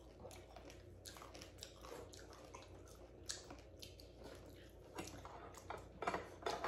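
Quiet eating of steamed lobster: chewing, with small clicks and cracks of shell being pulled apart by hand. A few sharper cracks come about three seconds in and again near the end.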